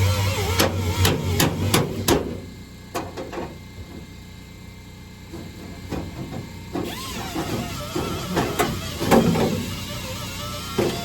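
Sharp metal knocks, like hammer blows on sheet steel: a quick run of about five in the first two seconds, then scattered single knocks, while the spot-welded underseat toolbox is worked loose from the Jeep CJ5 body.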